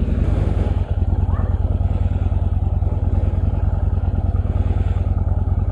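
Motorcycle engine idling steadily, an even run of rapid low pulses, picked up by a microphone inside the rider's helmet.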